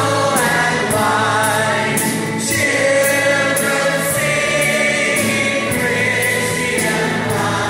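Mixed choir singing long held notes with orchestral accompaniment, over a steady beat of about two strokes a second.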